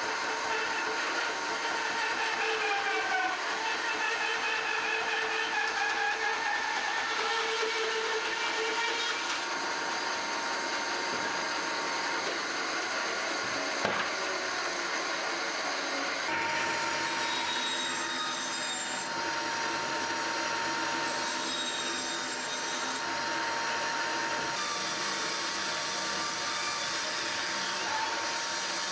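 Homemade bandsaw, driven by a 1.5 kW three-phase induction motor, running and cutting test pieces of wood, with a steady whine and tones that waver as the blade works through the cut. There is one sharp click about midway, and the sound changes character a couple of seconds later.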